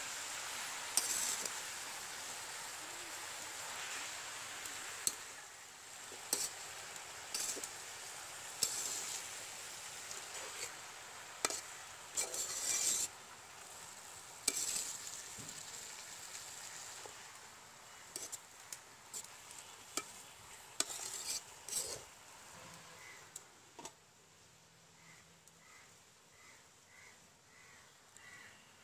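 Metal spatula stirring and scraping spinach and taki fish in a large metal karai, with sharp clicks of the spatula against the pan over a steady sizzle. The sizzle fades as the leaves wilt, and the stirring stops about three-quarters of the way through.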